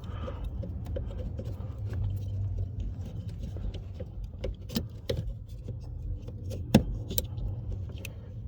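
Scattered small clicks and knocks of parts being handled and fitted around a brake light switch under the dash, with one sharper click about two-thirds of the way through, over a steady low hum.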